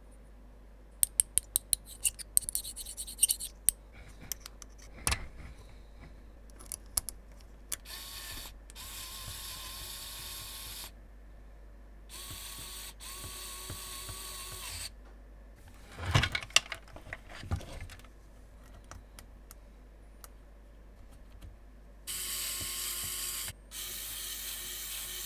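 Small electric screwdriver whirring in three steady runs of a few seconds each, driving small screws into a metal bracket. Between the runs come sharp clicks and knocks of small metal parts being handled, with a quick run of clicks near the start.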